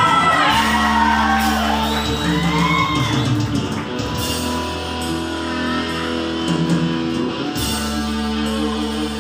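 Live rock band playing an instrumental passage: an electric guitar lead with bending notes over steady bass notes.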